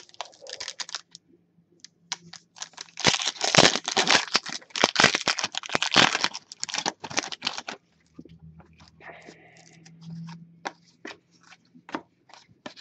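Foil trading-card pack being torn open and crinkled. The crackle is loudest for about five seconds starting about three seconds in. It is followed by scattered soft clicks of the cards being handled.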